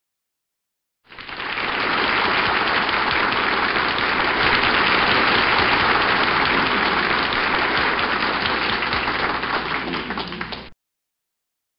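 Audience applauding just after the end of a recited dramatic monologue. The clapping comes in about a second in, swells quickly, holds steady for about nine seconds, then cuts off suddenly.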